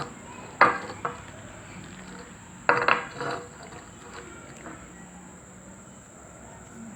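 A bowl and utensils clinking and knocking as they are handled: two sharp clinks about half a second and a second in, a quick cluster around three seconds, and a few fainter taps later.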